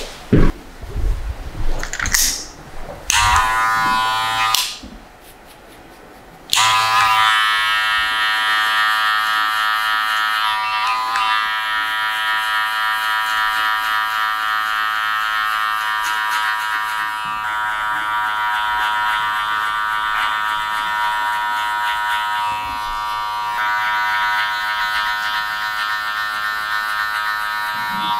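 Electric hair clippers running steadily as they cut hair, switched on about six and a half seconds in. Before that come a few short knocks from handling.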